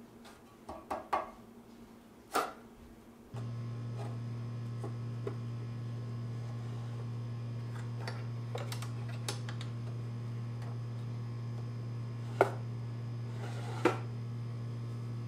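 Light clicks and taps of hands fitting a metal bracket under a wooden tabletop. A steady low electrical hum starts suddenly about three seconds in. Under it come scattered clicks of a wooden drawer being handled, then two sharp wooden knocks near the end.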